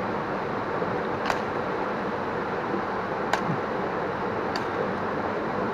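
A bolo knife knocking and cutting at a plant's roots and stems: three or four sharp clicks, one to two seconds apart, over a steady rushing hiss.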